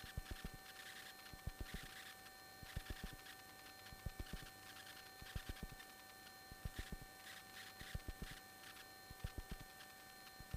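Faint electrical hum with steady tones and a light hiss on an aircraft's intercom and radio audio feed. Clusters of sharp clicks recur about every 1.3 seconds.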